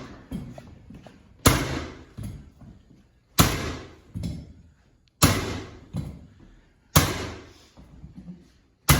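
Hammering during hardwood floor installation: five heavy blows about two seconds apart, each followed by a lighter knock.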